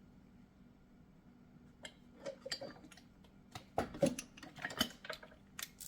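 Short metallic clicks and knocks of brake caliper parts and bolts being handled and fitted back in place. They start about two seconds in, come irregularly and are loudest around four seconds in.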